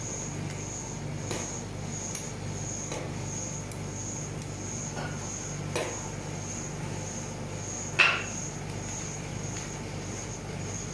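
Steel spatulas tapping and scraping on the stainless-steel cold plate of a rolled-ice-cream machine as the frozen mixture is chopped and spread flat. A few separate clicks stand out, the loudest a sharp metal clack about eight seconds in, over the machine's steady hum.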